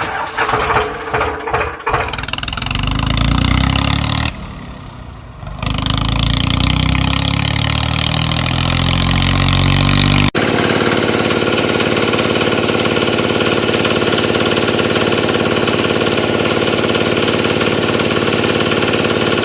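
Tractor engine starting, with irregular knocks in the first two seconds, then running and revving, dropping away briefly around four to five seconds in. After an abrupt cut about ten seconds in, it runs steadily at idle.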